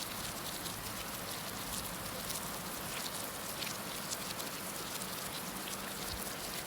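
Heavy rain falling steadily: a dense, even hiss with many scattered sharp drop ticks.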